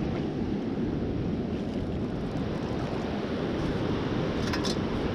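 Steady wash of sea water and surf around a wader, with a few faint clicks near the end.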